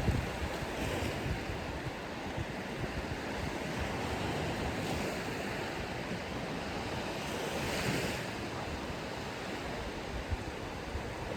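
Ocean surf washing on a sandy beach, a steady rush with waves swelling gently about a second in, around five seconds in and near eight seconds, with wind buffeting the microphone at times.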